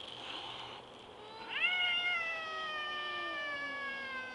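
Domestic cat yowling at another cat over food: a short breathy sound, then about a second and a half in a long drawn-out yowl that rises sharply and then slowly falls in pitch, held to the end.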